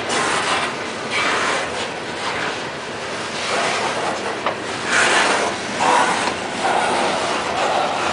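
Loaded-looking open-top coal cars of a Norfolk Southern unit coal train rolling past close by: a steady rumble and rattle of wheels on rail and car bodies, swelling in uneven surges as the cars go by.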